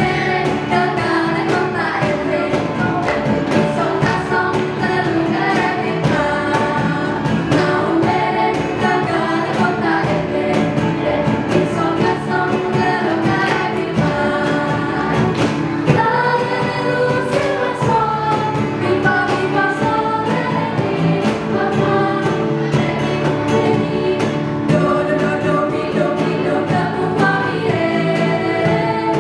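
A group of young voices singing a song together over instrumental accompaniment with a steady beat.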